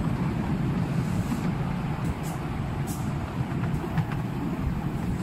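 Miniature-railway steam train running along the track, heard from a passenger car behind the locomotive: a steady low rumble of the wheels on the rails, with a few brief faint high hisses about one, two and three seconds in.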